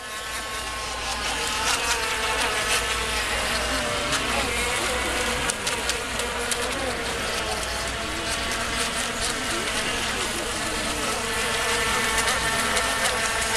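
Several small electric ECO Mini racing model boats running together: a mix of high-pitched buzzing motor whines, each drifting up and down in pitch as the boats turn and pass.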